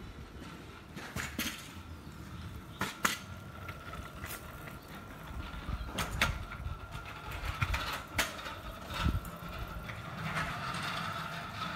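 Footsteps on a concrete walkway: irregular sharp taps, some in quick pairs, over a low rumble and a faint steady high-pitched tone.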